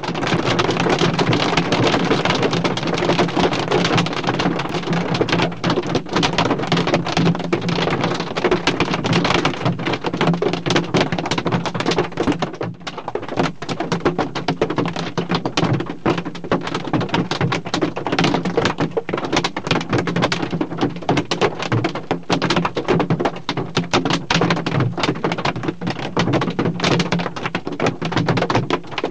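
Hail and rain pelting a car's windshield and roof, heard from inside the car: a loud, dense, continuous patter of countless small impacts, easing briefly about halfway through.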